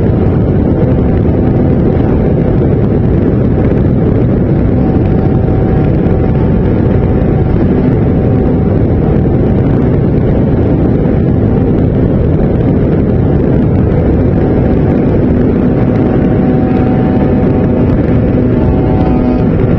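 Steady loud rush of wind over the onboard camera's microphone on a flying RC model airplane, mixed with the drone of its motor and propeller, whose faint hum comes and goes under the noise.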